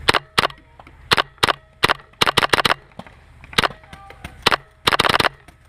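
Paintball markers firing: about a dozen sharp pops at uneven intervals, some in quick pairs, with a fast burst of shots near the end.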